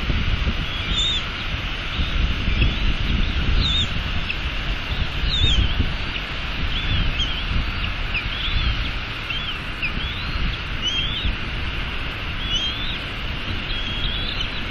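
Bald eagle eaglets peeping while being fed, in short high chirps that bend up and down, repeating about once a second. Under them is a steady hiss of rain and a low rumble of wind on the nest-cam microphone.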